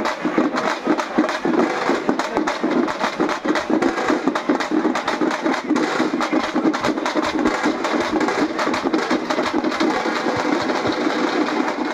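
Group of shoulder-slung drums beaten with sticks in a fast, unbroken rhythm.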